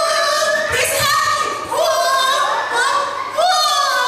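Singing voices on a string of long held notes, each scooping up into its pitch.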